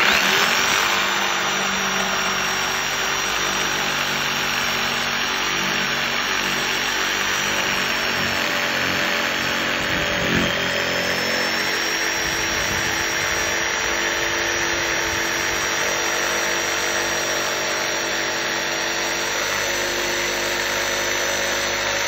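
DeWalt jigsaw starting up and cutting steadily through a door panel along a curved line: a high motor whine over the rasp of the blade.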